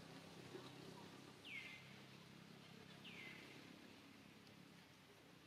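Two faint, high-pitched calls about a second and a half apart, each sliding quickly down in pitch and then holding briefly, over a faint steady low hum.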